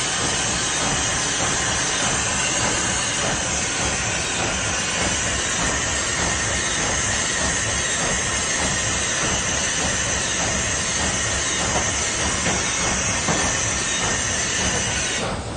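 Vacuum leak tester running, a steady loud hiss of air as its chamber is being evacuated.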